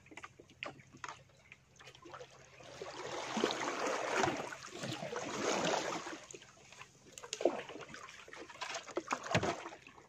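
Sea water sloshing, splashing and trickling beside a small boat, swelling for a few seconds in the middle, with a couple of sharp knocks near the end.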